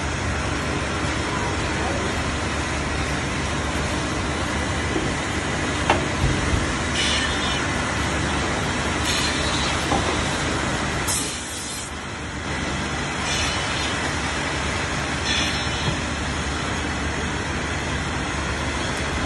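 Woodmaster WM-2000BI automatic dowel drilling, glue-injecting and dowel-inserting machine working over a steady din of workshop machinery, with short hisses of air about every two seconds and a few sharp clacks.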